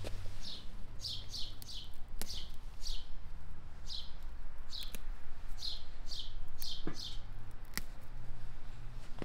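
A small bird chirping repeatedly: about a dozen short chirps, each dropping quickly in pitch, one or two a second. A few sharp clicks sound in between, the loudest near the end.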